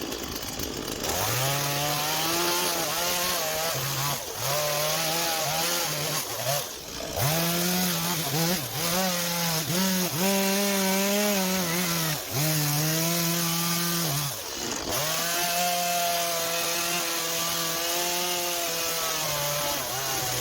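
Chainsaw cutting timber, its engine pitch sagging and recovering as the chain bites into the wood, with two brief let-offs about seven and fourteen seconds in.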